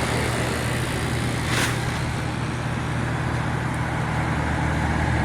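1983 General Electric Carry Cool window air conditioner running on high cool: the R-22 compressor humming steadily under the even rush of the fan. To the owner it sounds good, a sign that the freshly oiled, once-frozen unit is cooling normally.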